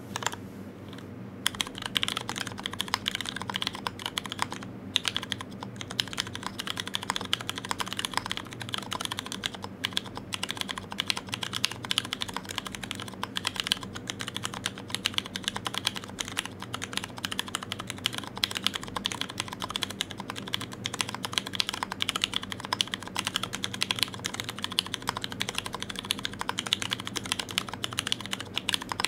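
Alais R2 Alice-layout mechanical keyboard being typed on, with Hyperglide Brown tactile switches on a carbon fibre plate and GMK ABS keycaps. A few scattered keystrokes at first, then steady, fast typing from about a second and a half in.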